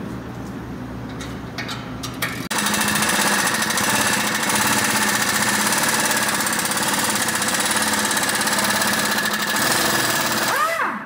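Pneumatic impact wrench hammering on a bolt under the front of the car, starting about two and a half seconds in, running steadily for about eight seconds, then stopping near the end.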